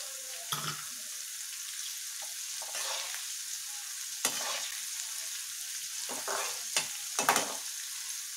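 Sliced green chillies deep-frying in hot oil in an aluminium kadai, sizzling steadily, while a metal slotted spoon stirs them. The spoon clinks and scrapes against the pan several times.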